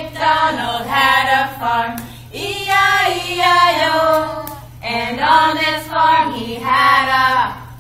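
A group of women and young children singing a song together, in phrases with short breaks about two and five seconds in.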